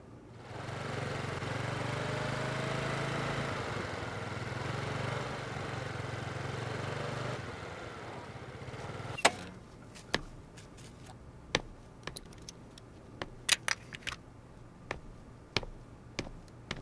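A motorbike engine runs steadily for several seconds, then stops. After it, hard-soled shoes click in uneven footsteps on pavement.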